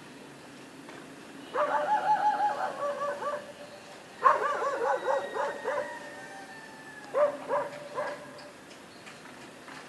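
Dogs barking in three bouts of quick, high barks. The first comes about a second and a half in, the second at about four seconds, and a shorter one near seven seconds.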